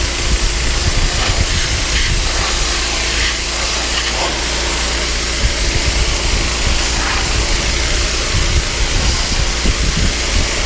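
Pressure washer running steadily, its spray hissing as it blasts water onto wooden deck boards, over the machine's steady low hum.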